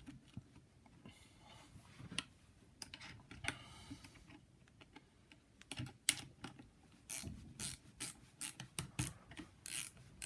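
Irregular small metal clicks and clinks as nuts are fitted onto a lopper blade's mounting bolts and run on with a socket ratchet, with a brief rasping stretch a little after three seconds in.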